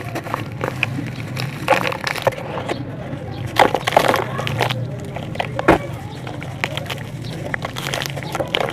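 Sand-cement block being crumbled by hand: an irregular run of dry crunches and crackles, with a cluster of louder crunches about midway and one sharp crack a little later.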